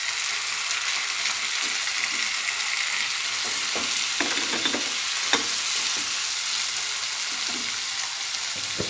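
Freshly added chopped tomatoes sizzling in hot oil with onions and green chillies in a non-stick kadai, a steady frying hiss. The mix is stirred, with a few short knocks against the pan in the middle.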